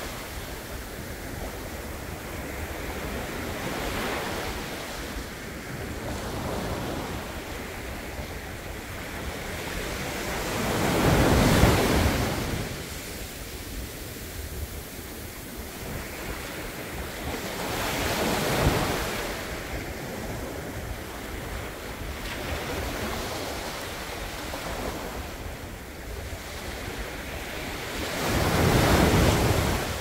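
Small sea waves breaking and washing up over a sandy beach: a steady hiss of surf that swells into louder surges as each wave comes in, the biggest about a third of the way through, others about two-thirds through and near the end.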